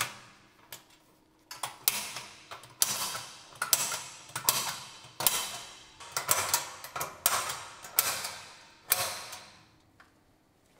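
Sheet-metal louver blades being pressed and snapped into their metal mounting clips in the louver frame: a run of sharp metallic clicks, about two a second, starting about a second and a half in and stopping shortly before the end.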